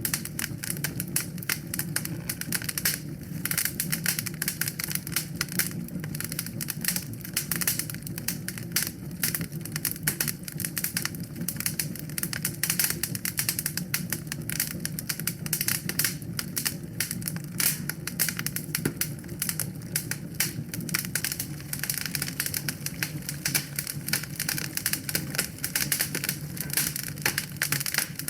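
Wood fire burning in a fireplace, crackling with dense, rapid pops and snaps over a low, steady rumble of the flames.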